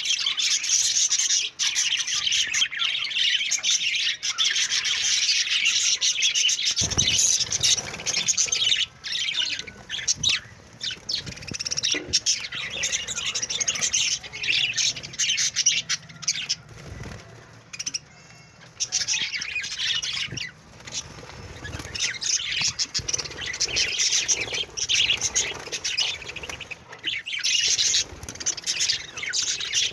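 A group of budgerigars chirping and warbling in a rapid, continuous chatter with squawks mixed in, busiest at the start and again near the end.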